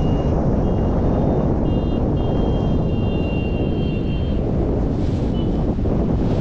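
Wind rushing over a GoPro microphone in paragliding flight, a loud steady low buffeting. A thin high steady tone sounds on and off through the first four seconds, then stops.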